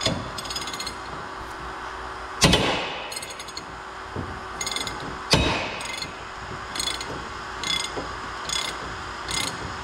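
Ratchet clicking in short runs as a long handle is worked back and forth on a torque multiplier, slowly turning a very tight bolt that has just begun to give. Two loud metal clanks come about two and a half and five seconds in.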